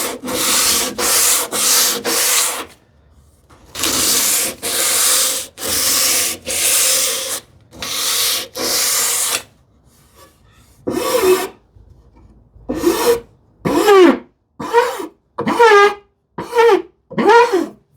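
A series of hand strokes rubbing an abrasive tool over wood, rounding over the sharp edges and corners of a drawer front. In the second half the strokes turn shorter and carry a squeaky tone that rises and falls with each stroke.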